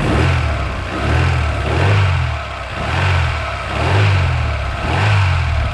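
Daewoo Lanos engine running before it has warmed up, its sound swelling and easing about once a second, with a faint knock from the crankshaft that the mechanic suspects is a worn main bearing rather than a connecting rod.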